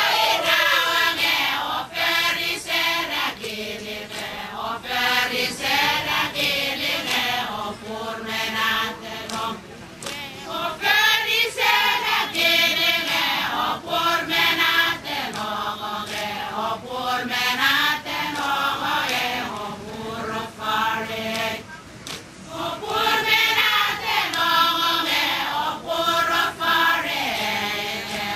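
A group of Satawalese women chanting together in unison for a seated dance, in sung phrases broken by short pauses.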